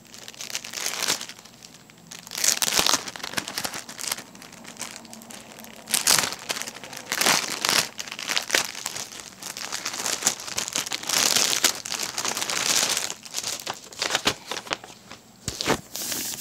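Small plastic bags of diamond painting drills being handled, crinkling and rustling in irregular bursts.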